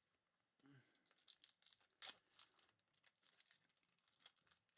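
Faint tearing and crinkling of a Topps Merlin Chrome trading-card pack wrapper being pulled open by hand, in many short irregular crackles starting about half a second in.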